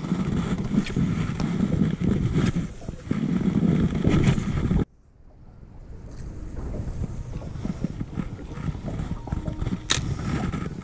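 Wind buffeting the microphone in gusts, cutting off abruptly about five seconds in, then lighter wind noise with small handling ticks. A single sharp click near the end as the spinning reel is handled.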